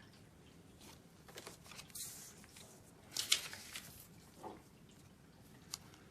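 Packaging being handled: scattered rustling and crinkling with a few light clicks, the loudest crinkle about three seconds in.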